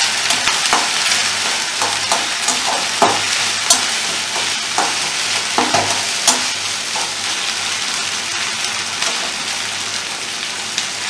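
Onion, ginger, chilli and cumin paste sizzling in hot mustard oil in a metal kadai, the masala being fried (bhuna). A metal spatula scrapes and knocks against the pan as it stirs, most often in the first half.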